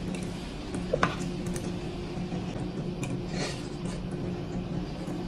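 Close-up eating sounds: chewing mouthfuls of soft boiled egg and rice, with a spoon clinking once about a second in, over a steady low hum.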